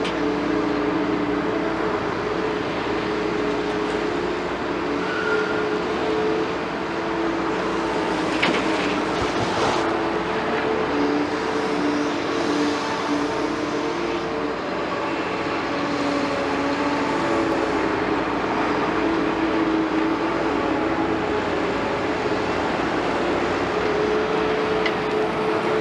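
Liebherr 946 excavator working: its diesel engine and hydraulics run steadily, with a hum that shifts up and down in pitch as the load changes. A couple of sharp clanks come about nine seconds in.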